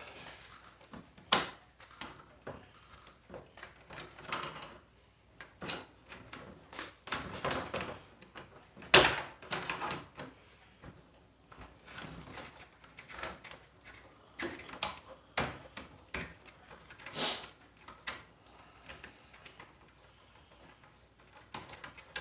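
Irregular clicks, knocks and short scrapes from a Casio Casiotone CT-360 keyboard's casing and internal parts being handled and unscrewed during disassembly. The sharpest knock comes about nine seconds in.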